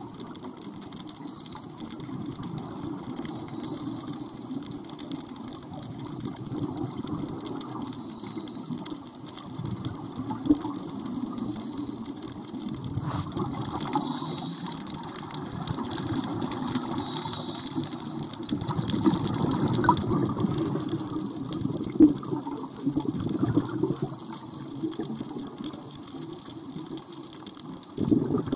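Underwater sound of a scuba dive: divers' exhaled regulator bubbles gurgling in repeated surges over a low, muffled rumble.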